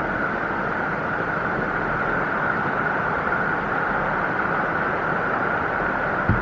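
A mountain stream rushing steadily over rocks, with one short low knock near the end.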